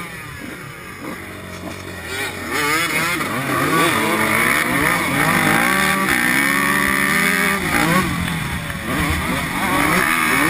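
Dirt bike engine running under way, its pitch rising and falling repeatedly as the throttle is worked. It gets louder about two and a half seconds in.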